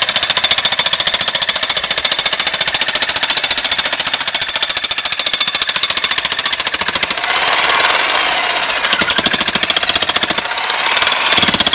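Handheld jackhammer chiselling into mortared fieldstone masonry: a loud, rapid, continuous stream of hammer blows.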